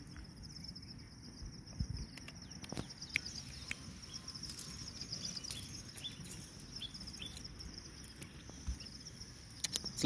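Insects, likely crickets, trilling steadily in the grass. Short high chirps come every second or so, and there are a few faint clicks.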